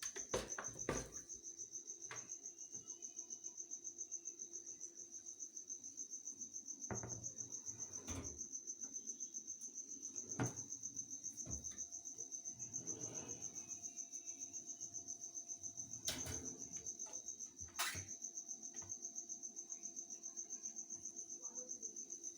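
A cricket chirping steadily in rapid, even pulses at a high pitch, with a few scattered clicks and knocks.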